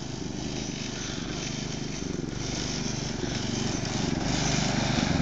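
Yerf-Dog go-kart's small engine running steadily as the kart drives over dirt and grass, growing louder as it approaches.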